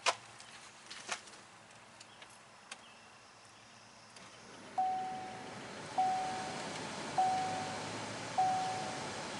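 A few sharp clicks, then the van is switched on and a steady hum comes up, and the Chevrolet Uplander's dashboard chime starts pinging: a single short tone about once every 1.2 seconds, sharp at the start and dying away.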